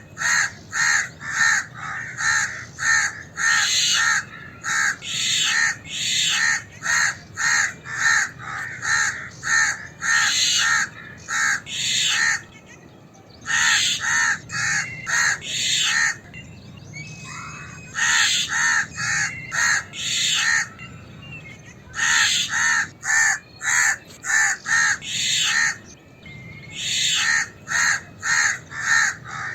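House crows calling in alarm: rapid harsh caws, about three a second, in bouts a few seconds long with short pauses between them.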